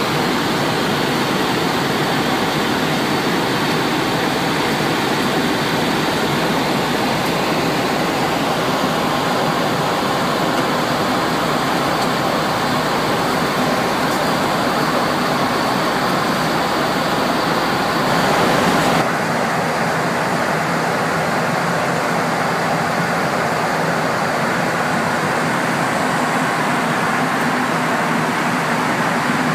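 Steady rushing noise on a Boeing 737-800 flight deck in flight: the hiss of airflow and air conditioning. About two-thirds of the way through, it changes abruptly and loses some of its highest hiss and deepest rumble.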